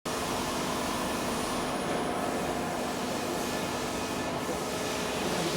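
Diamond-wire multi-wire saw running as it slices sapphire into wafers: a steady mechanical noise with a few faint, constant hum tones.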